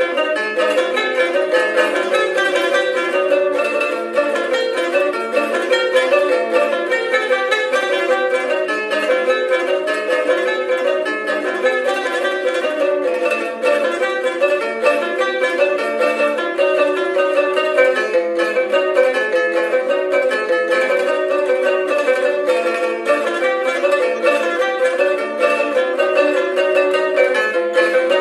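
A solo jarana, the small Sotavento strummed guitar, playing a son: chords repeated in a steady, quick rhythm with no singing.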